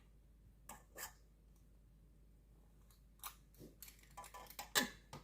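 Cookie scoop clicking and scraping against a bowl of sugar-cookie dough as dough is packed into it: a couple of light clicks about a second in, then a run of quick scrapes and clicks, the loudest near the end.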